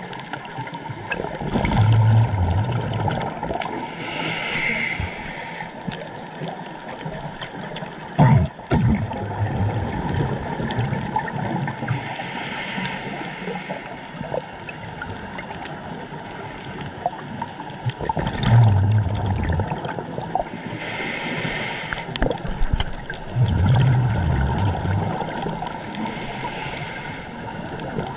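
Scuba diver breathing through a regulator underwater, about three slow breath cycles: a hissing inhale, then a rumbling, bubbling burst of exhaled air. One sharp knock comes about eight seconds in.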